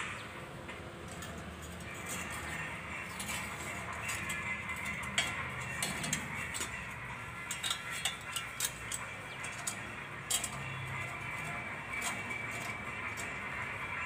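Scattered light clicks and clinks from hands handling small metal parts and a foil packet, mostly in the middle of the stretch, over a steady low hum and hiss.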